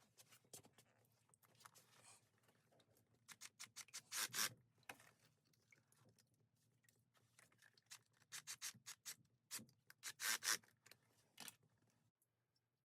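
Faint, intermittent rubbing and scraping, with short louder rasping strokes bunched about four seconds in and again about ten seconds in.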